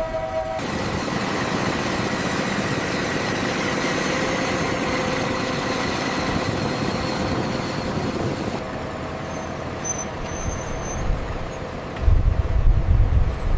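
Steady rushing machine noise with faint high whines, which drops away after about eight and a half seconds; a deep low rumble comes in near the end.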